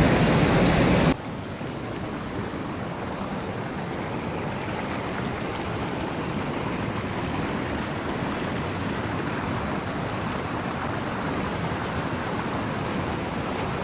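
Steady rushing of falling water from the waterfall. It is loud and bright for about the first second, then drops suddenly to a lower, even rush.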